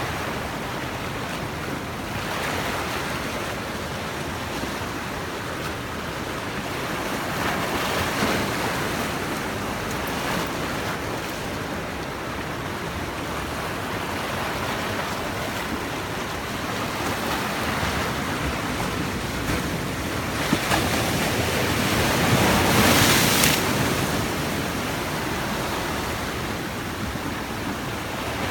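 Sea waves washing onto the shore: a steady surf that swells several times, with the biggest wave breaking about three-quarters of the way through.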